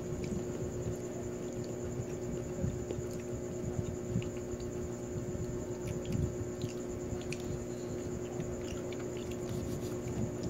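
A person eating rice by hand off a plate: faint scattered clicks, soft knocks and chewing, over a steady mechanical hum.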